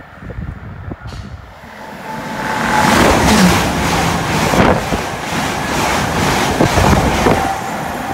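Great Western Railway Class 800/3 bi-mode express train passing close at speed: its noise swells over a couple of seconds into a loud rush of carriages with a rapid rattle of wheels on rail, then falls away as it recedes near the end.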